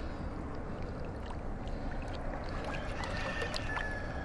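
Shallow water lapping and trickling around a large beluga sturgeon held in the shallows, with a few faint clicks.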